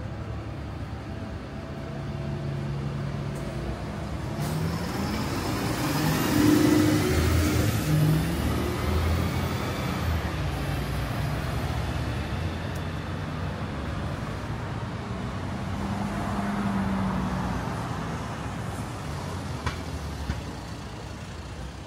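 City street traffic with engines running. A vehicle passes close by, swelling from about four seconds in to a peak around seven seconds and fading after ten seconds. A smaller pass follows around sixteen seconds.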